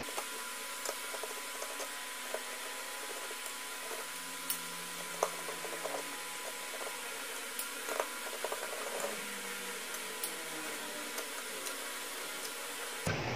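Light clicks and taps of a screwdriver and hands working on a metal ATX computer power supply case as it is taken apart, scattered irregularly over a steady hiss.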